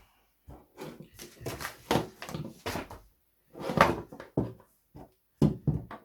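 Paper instructions and a plastic tool case being handled: an irregular string of short rustles, clicks and knocks, the loudest about four seconds in.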